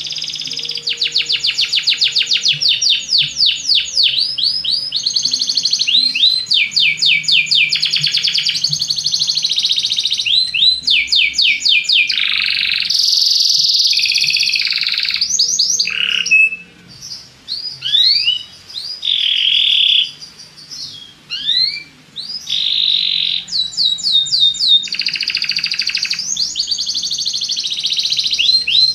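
Belgian canary singing a long, loud song of rapid trills: runs of quick rising chirps and buzzy rolls, with a few short pauses past the middle.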